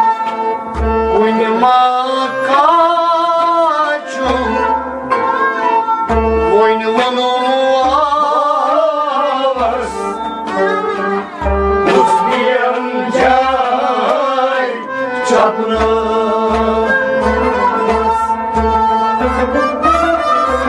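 Kashmiri Sufi devotional song: a male voice singing long wavering phrases over steady held instrument tones, with a drum keeping a regular beat that grows more even near the end.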